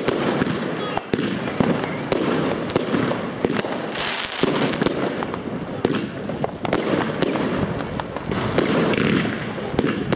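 Fireworks going off in quick succession: many sharp cracks and bangs over a steady crackling hiss.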